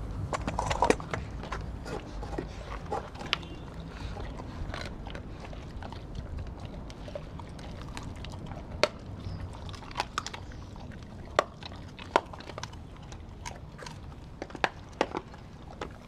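Two dogs, a Doberman and a German shepherd mix, eating raw meat and kibble from stainless steel bowls. Chewing and biting, with irregular sharp clicks and knocks, over a steady low rumble.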